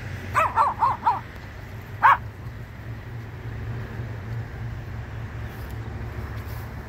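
A dog barking: four quick, high yapping barks in the first second, then one louder bark about two seconds in.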